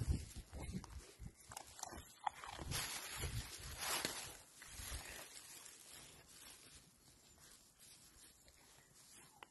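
Soft rustling and shuffling in loose straw as a puppy moves about on the bales, loudest a few seconds in.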